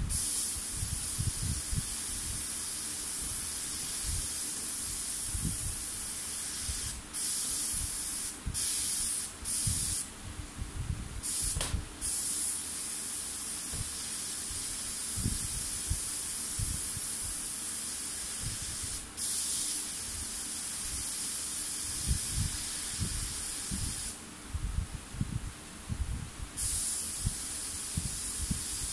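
Gravity-feed airbrush spraying paint, a steady high hiss of air that stops briefly several times as the trigger is let off and picks up again, with scattered low thuds underneath.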